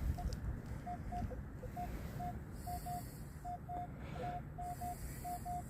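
Metal detector sounding short beeps at one pitch, one to three a second, with a couple of lower-pitched blips, as the search coil is swept over the ground. A low rumbling noise runs underneath.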